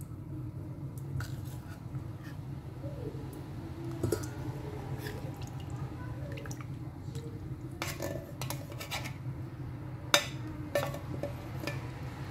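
Metal spoon scraping thick coconut milk out of a can into a stainless steel saucepan, then breaking it up and stirring, with scattered clinks and taps of spoon on can and pan; the sharpest clink comes about ten seconds in. A steady low hum runs underneath.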